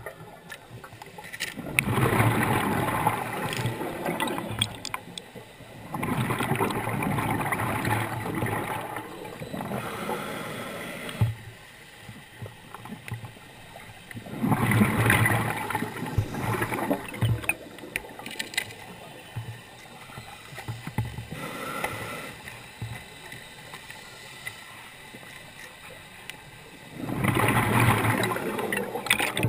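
Scuba diver breathing on a regulator underwater: four exhalations, each a loud bubbling rush of exhaust bubbles a few seconds long, spaced irregularly, with quieter water noise between them.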